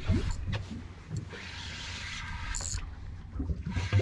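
Spinning reel being cranked to bring in a hooked fish, a steady whirring from about a second in until past three seconds with a sharp click near the end of it, over low rumble and thumps.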